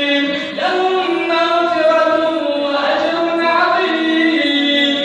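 Nasheed-style devotional singing in Arabic: a voice holding long, ornamented notes that glide from pitch to pitch, with other voices layered beneath.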